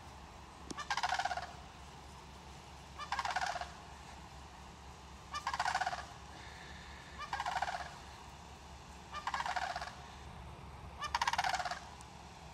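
Turkey gobbling six times, about every two seconds: each gobble a quick pulsing call that falls in pitch.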